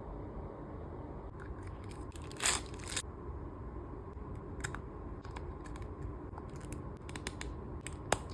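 Packaging being handled and opened: a louder tearing rustle lasting about half a second, a little over two seconds in, among scattered light clicks and taps, with one sharp click near the end.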